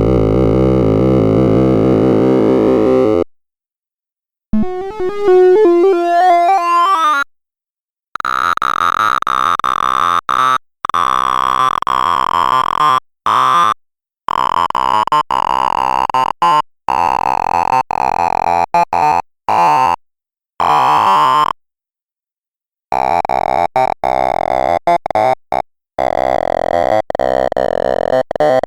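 Sorting-algorithm sonification from the Sound of Sorting program: a rapid stream of short synthesized beeps, one for each array access, with pitch set by the value being compared. It stops and starts with short silences, and through the middle the main pitch drifts slowly downward.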